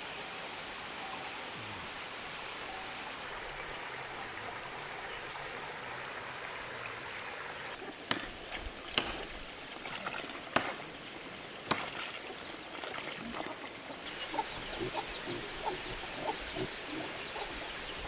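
Steady rushing outdoor background noise like running water. Around the middle come a few sharp clicks or knocks, and after that a hen clucks softly, several short clucks a second.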